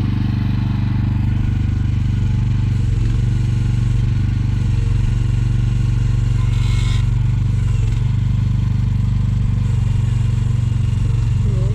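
Mini excavator engine running steadily, with a brief scrape or rattle about seven seconds in.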